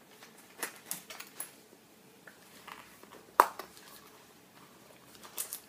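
Light knocks and metal clinks of a pair of hair-thinning scissors being picked up and handled, with one sharp click about three and a half seconds in.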